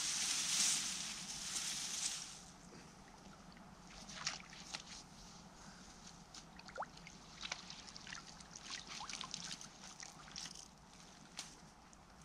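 A hooked tench splashing at the pond surface, loudest in the first two seconds, then scattered smaller splashes and water sloshing as it is drawn into the landing net.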